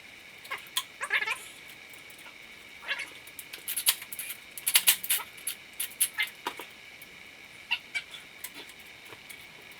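Hand tools clicking and knocking on metal while a two-jaw puller is worked onto the crankshaft balancer, with a few short high squeals.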